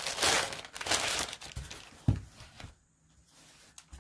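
Grey plastic poly mailer envelope crinkling and rustling as it is handled and opened, with a single soft thump about two seconds in.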